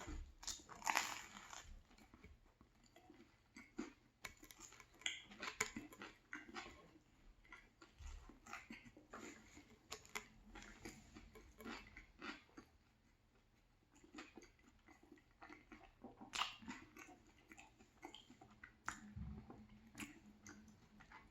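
Close-miked chewing and biting into a crusty banh mi baguette sandwich, with irregular crunches of the crust between softer chewing, and a quieter spell about two-thirds of the way through.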